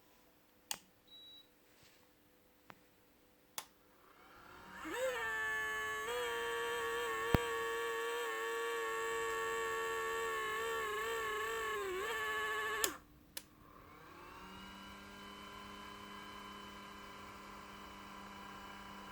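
LED light making an abnormal electrical whine: a few sharp clicks, then about five seconds in a steady pitched buzz with many overtones sets in, wavers slightly, and cuts off with a click about thirteen seconds in. Soon after, a quieter whine fades back up and holds.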